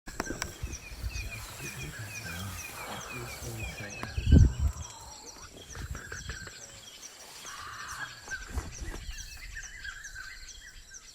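Birds chirping over and over in short repeated notes, with a low rumbling underneath and a dull thump about four seconds in.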